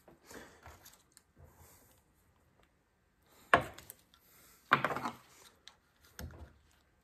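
A steel pick scraping and clicking against a hydraulic cylinder gland as the old, flattened rod seal is dug out: faint scraping at first, then a pause, then sharp clicks about three and a half and five seconds in and a smaller one near the end.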